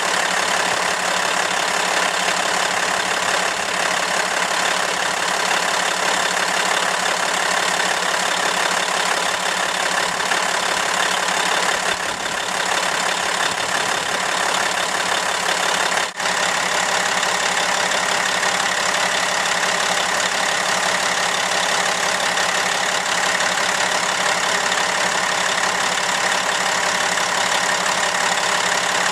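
Caterpillar C12 inline-six diesel engine of a Kenworth W900 idling steadily, heard close up with the hood tilted open. The level dips for a moment once, just past halfway.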